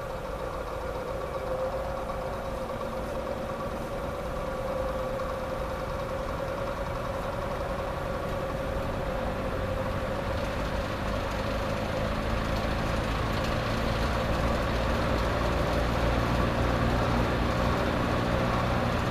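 Vintage Lasko 6745 box fan's RMR motor and blades running with a steady hum and whir, getting gradually louder. It is running on low, the only speed that works; the high speed is dead.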